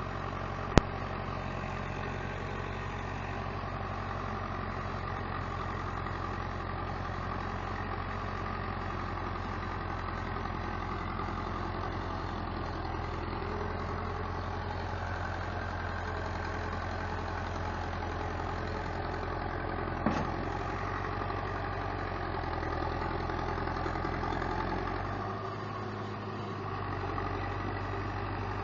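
Zetor 7340 Turbo tractor's turbodiesel engine running steadily while pulling a loaded trailer through wet, muddy grass. A sharp click sounds about a second in and a short knock around twenty seconds in.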